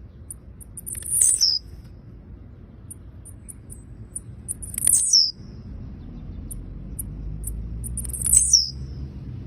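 Blue-black grassquit (tiziu) calls: three loud, short, high phrases that drop in pitch, about one every three and a half seconds, with thin high chirps repeating in between.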